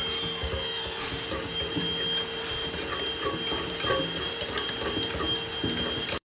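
Metal wire whisk stirring round a glass mixing bowl: quick, repeated scraping and clicking of the wires against the glass, over a steady hum. The sound cuts out briefly near the end.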